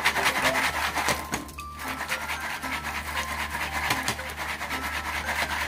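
Foil-pan instant popcorn being shaken over a gas burner: rapid, even rattling of the kernels and foil, with a short break about two seconds in.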